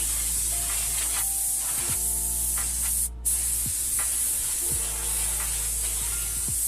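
Steady spraying hiss that stops for a moment about three seconds in, over background music with sustained notes.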